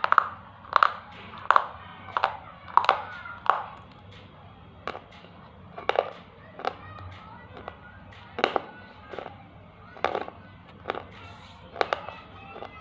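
A thick white Kangaroo-brand slate pencil being bitten and crunched dry between the teeth. The sharp crunches come about every three-quarters of a second at first and are further apart after about four seconds.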